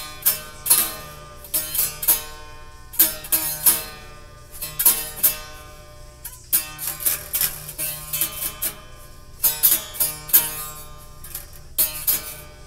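Acoustic guitar being plucked: short runs of notes and chords that ring out and fade, with brief pauses between.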